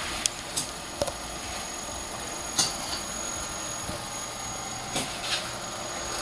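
Steady background hum and hiss of a servo test bench, with a faint high-pitched whine and a few light clicks and knocks.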